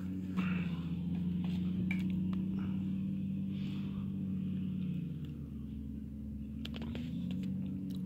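Steady low engine hum, as from an idling vehicle, holding one pitch for about five seconds, fading, then returning near the end, with a few sharp handling clicks.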